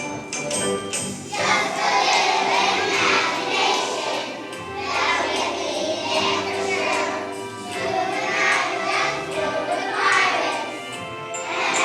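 Young children singing together as a choir to instrumental accompaniment. The voices come in about a second in, after a few tinkly bell-like notes.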